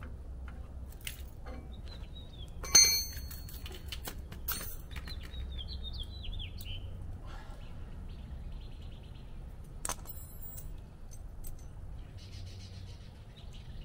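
Metal clanking from a trailer coupler lock being worked off a boat trailer's hitch coupler: a loud sharp clank with a brief metallic ring about three seconds in, and a second ringing clank about ten seconds in. Birds chirp in short falling notes in between.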